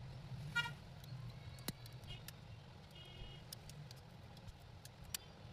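Faint steady low hum with a few short high-pitched toots, each under half a second, and several sharp clicks.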